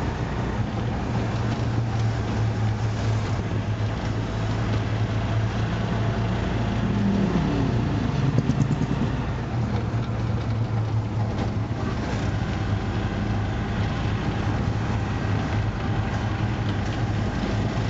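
Bajaj auto-rickshaw's single-cylinder engine running steadily under way, heard from inside the open cab, with its pitch sliding briefly about seven to eight seconds in.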